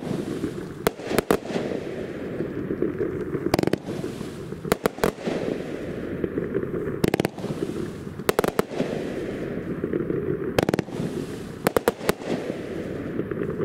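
Consumer fireworks cake firing its fans of gold brocade mines and breaks with red strobe: sharp bangs in quick clusters of two or three, every second or two, over a steady background noise.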